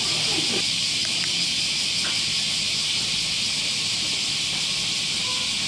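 Steady chorus of summer cicadas, a dense, even, high hiss without a break.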